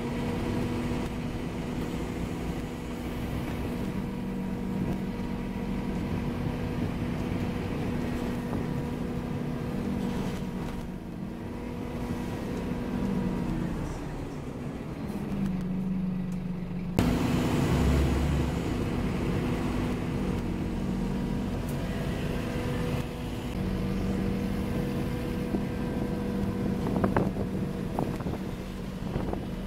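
Scania OmniCity N230UD double-decker bus heard from inside the passenger saloon while moving: a steady diesel engine and drivetrain drone whose pitch dips and shifts about halfway through. A sudden louder bump and rumble comes about two-thirds of the way in, and a few sharp rattling clicks come near the end.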